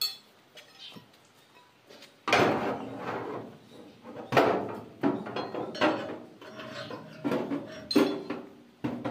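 Metal tools and machine parts clanking and knocking: about eight irregular strikes with a short metallic ring, starting about two seconds in.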